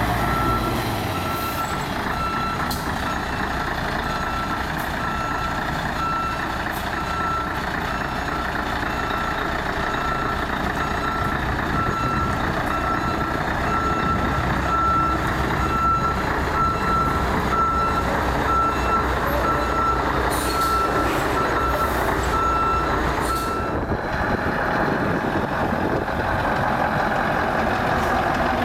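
Reversing alarm of a Scania 143 V8 truck beeping at a steady even rate while the truck backs up, over the steady running of its diesel V8. The beeping stops about 24 seconds in, and the engine keeps running.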